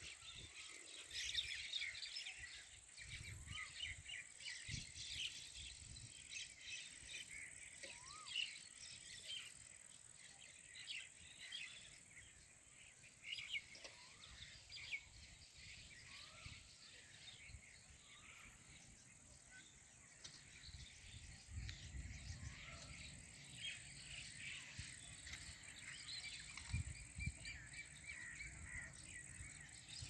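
Many small birds chirping together in a faint, busy evening chorus, with a few separate short calls among them. A few low rumbles come in during the second half.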